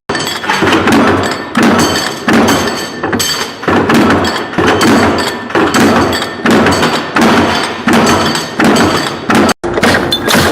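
Rhythmic heavy knocking from a machine at work, about two strikes a second at a steady pace, broken by a brief cut near the end.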